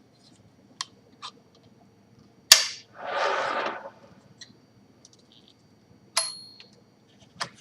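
1951 Smith Corona Silent portable typewriter being worked: sharp mechanical clacks a few seconds apart, with a rattle lasting about a second after the loud one about two and a half seconds in. About six seconds in, a single ring of the margin bell.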